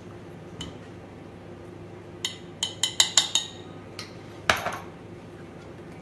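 A small spoon clinking against a small glass jar as it scoops out its contents: a scattered run of sharp clinks, quickest between about two and three and a half seconds in, then one louder, scraping clatter about four and a half seconds in.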